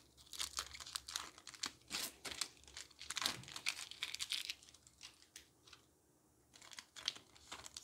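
Foil wrapper of a Pokémon trading-card booster pack being torn open and crinkled in the hands: rapid crackling rustles, dying down about five seconds in, then a few more crinkles near the end.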